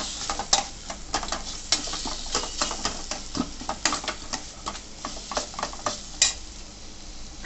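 Tomato and ground masala sautéing in hot sesame oil in a pan, sizzling as it is stirred, with frequent short scrapes and knocks of the stirring utensil against the pan. This is the sauté stage, cooking until the raw smell of the tomato and masala is gone.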